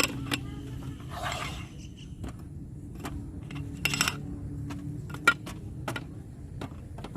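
Camp-stove gear being handled and set up: a string of light metal clicks and clinks, with two short scrapes, one about a second in and one about four seconds in, and a sharper click a little after five seconds, over a steady low hum.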